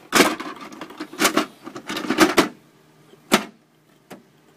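A dehumidifier's water bucket being slid back into its housing: a couple of seconds of plastic rattling and knocking, then a sharp click as it seats and a lighter click about a second later.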